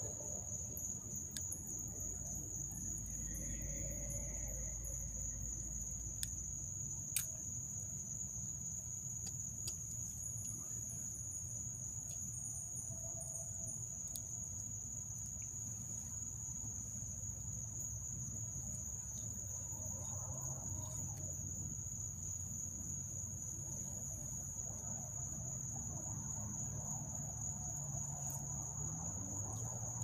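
Crickets trilling in a steady high-pitched night chorus, with a low hum underneath. A few sharp clicks sound about a fifth of the way in, the loudest just after.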